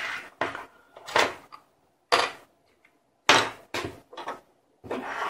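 Handling noise on a wooden desk: about eight short scrapes and knocks, each a fraction of a second long, as small electronic parts and wires are picked up and set down.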